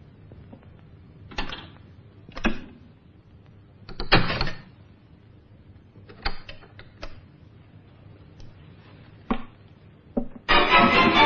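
A film soundtrack's scattered knocks and clatters, short and irregularly spaced, the loudest about four seconds in. About a second before the end, orchestral music comes in suddenly and loudly.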